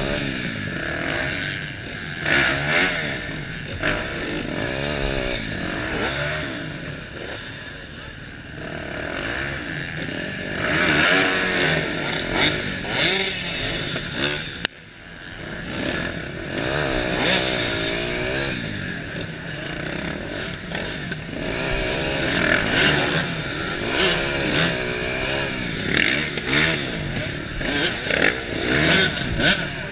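KTM 250 EXC two-stroke dirt-bike engine revving up and down again and again in short blips while the bike is worked through piled tyres, with clattering knocks and scrapes. Other dirt bikes rev close by.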